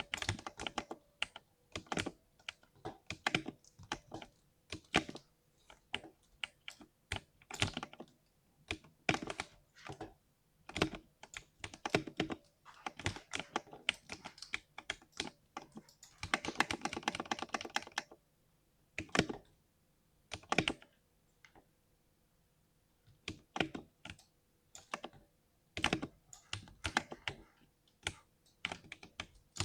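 A 60% mechanical keyboard being typed on, its keystrokes giving a deep 'thock' in irregular runs. There is a fast flurry of keystrokes a little past halfway and a short pause a few seconds after it.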